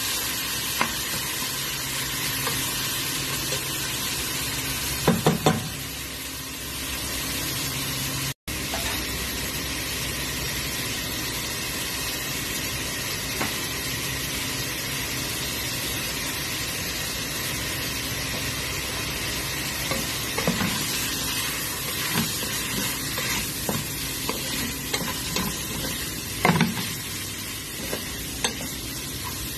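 Chicken pieces sizzling steadily in hot oil in a large pan while a wooden spatula stirs and turns them. The spatula knocks against the pan now and then: three quick knocks about five seconds in, and single knocks later on.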